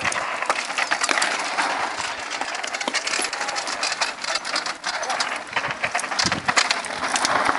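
Mountain bikes coming down a loose dirt and gravel trail close by: a dense, irregular run of sharp clicks and rattles from tyres on stones and the bikes' parts.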